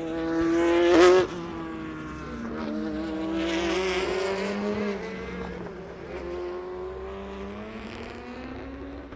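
A race car passes close by at about a second in, its engine pitch dropping as it goes. Its engine is then heard pulling away, the pitch climbing and breaking at each upshift as it fades.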